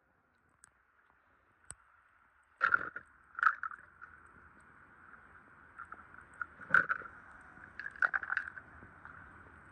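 Die-cast toy cars clacking against a marble ledge and each other as they are picked up and set down: several sharp knocks, starting a couple of seconds in, over a faint steady gurgle of pool water.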